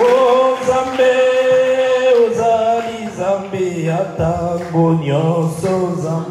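A man's voice singing a slow worship song in a chant-like style, holding one long note for about the first two seconds, then moving through a melody.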